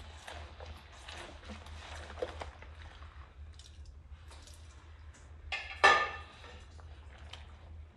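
Rubber-gloved hands scrubbing dishes with a sponge in a sink of soapy water: soft squishing and swishing of wet suds. About six seconds in, a single loud clink with a brief ring as a dish knocks against something hard.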